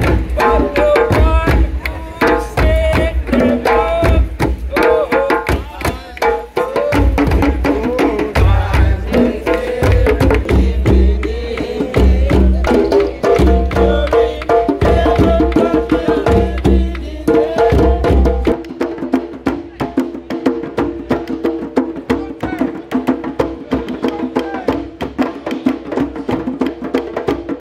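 A circle of djembes and other hand drums played together, a dense, steady rhythm of many hand strikes with some drums struck with sticks.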